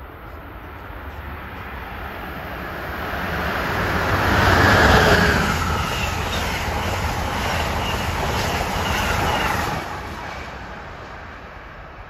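Amtrak passenger train passing at speed: the rushing rumble of its Amfleet coaches swells to a peak about five seconds in, holds, then drops off near ten seconds as the last car goes by and fades into the distance.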